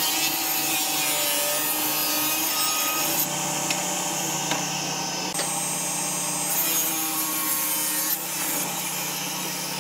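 Sliding-carriage table saw cutting through thick reddish hardwood: a steady cutting noise over the motor's hum, with a few light clicks.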